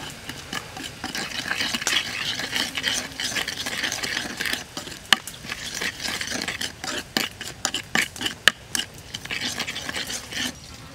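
Metal spoon stirring a wet mix of chopped garlic, herbs and spices in a bowl. It makes a continuous scraping and squelching with many sharp clicks of the spoon against the bowl; the loudest clicks come about five and eight and a half seconds in.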